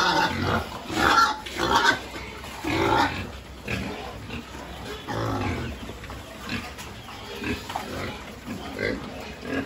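A pen of pigs grunting as they crowd and jostle at a feeding trough, in irregular bursts that are loudest in the first few seconds and then thin out.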